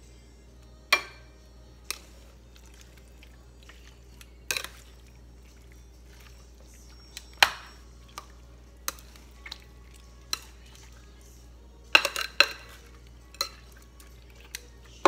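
Metal kitchen tongs clinking against a glass mixing bowl while tossing chicken pieces in marinade: single sharp clinks every second or two, with a quick run of clinks about twelve seconds in.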